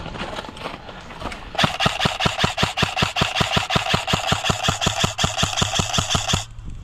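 Airsoft electric gun firing one long full-auto burst of evenly spaced shots, about six or seven a second, over a steady whine. It starts about a second and a half in and stops abruptly near the end.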